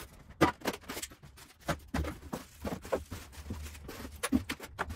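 Plastic wrapping crinkling and rustling, with clicks and light knocks from a styrofoam packing box, as a plastic-wrapped foam glider fuselage is freed and lifted out. The noise is irregular, with a sharp click about half a second in.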